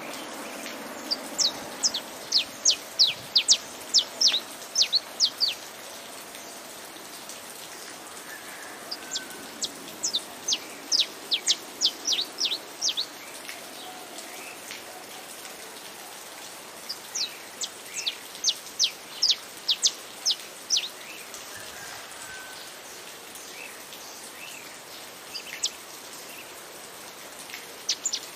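Saffron finch (canário-da-terra) singing over steady rain. It sings three phrases of quick, sharp, high falling notes, about three a second, each lasting four or five seconds, then gives a couple of lone notes near the end.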